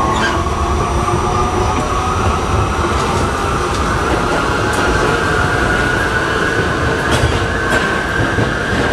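R68 subway car's traction motors whining hard as the train accelerates: several tones climb together and level off near the end, a whine the uploader calls severe for this car. Underneath runs the low rumble of the wheels, with occasional sharp clicks from the rails.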